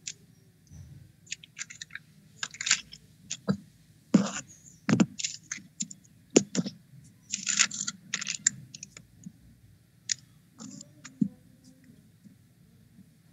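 Typing on a computer keyboard picked up by the call's microphone: irregular key clicks and short scratchy clusters, some loud, over a faint low hum.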